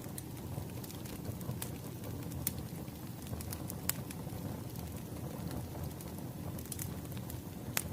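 Wood fire crackling: a steady low rumble with scattered sharp pops of burning firewood.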